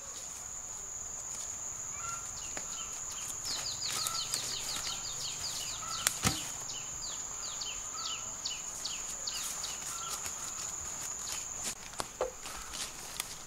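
Steady high-pitched insect drone, with a run of short falling chirps in the middle. A single sharp knock about six seconds in and a fainter one near the end.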